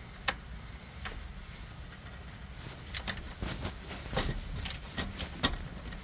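Metal wrench clinking on the oil drain plug as the 17 mm plug is loosened for an oil change: a few sharp clicks early on, then a cluster of irregular clinks from about three to five and a half seconds in.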